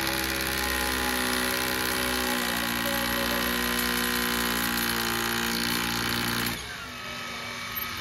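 Corded electric drill running steadily, its motor note shifting slightly a couple of seconds in, then switched off about six and a half seconds in.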